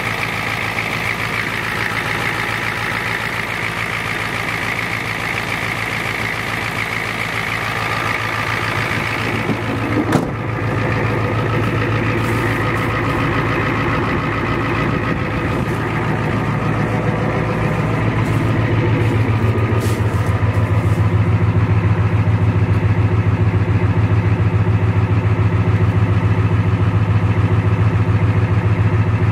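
Ford F-250's IDI diesel V8 idling steadily, left running to charge the battery. A short knock comes about ten seconds in, and the engine's low hum grows louder after it and again near twenty seconds.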